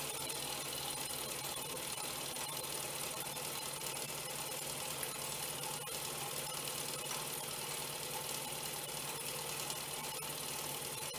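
Doll 320/5 toy vertical live-steam engine running steadily under steam, driving a small toy dredger by a belt: an even, fast mechanical running sound over a steady hiss.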